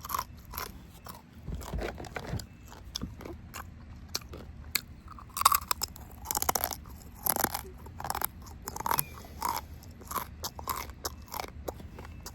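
Close-miked chewing and biting of juicy rotisserie chicken: a steady run of wet mouth clicks and crunches, with a few louder bites around the middle.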